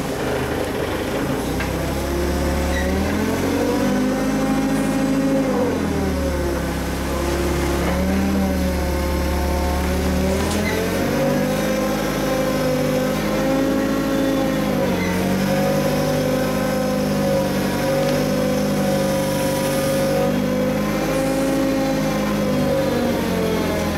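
Forklift engine running, its pitch rising and falling several times as it lifts a full bulk bag.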